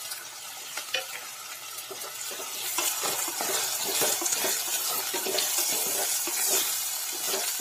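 Chopped onions and green chillies sizzling as they fry in hot oil in a metal pot, stirred with a wooden spatula that scrapes and knocks against the pot. The sizzle grows louder about two and a half seconds in.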